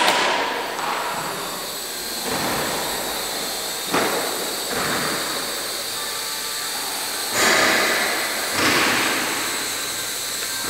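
A small quadcopter's motors and propellers whining steadily at a high pitch, swelling louder in surges about four, seven and a half and eight and a half seconds in as the throttle changes.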